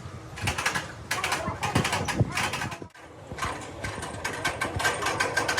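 Rapid mechanical clicking in repeated short bursts, with a brief break about three seconds in.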